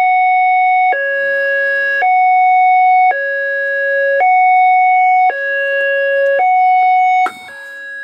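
Electronic level-crossing warning sound from an HO-scale model railway crossing controller. It alternates evenly between a higher and a lower tone, switching about once a second, with the gate arms not yet lowered. About seven seconds in it drops noticeably quieter and keeps alternating.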